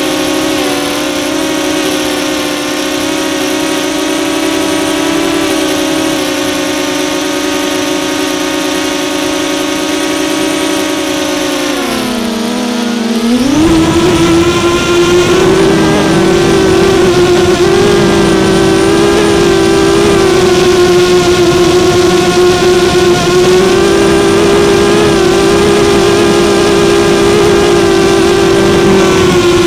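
A DJI Phantom 2 quadcopter's four brushless motors and propellers drone steadily, heard through the camera on board. About twelve seconds in, the pitch dips briefly, then rises to a higher, louder drone over a rushing noise.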